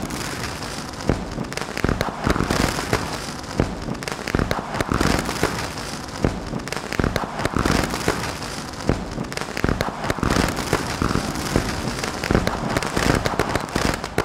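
Fireworks crackling and popping, with frequent sharper bangs standing out from the steady crackle.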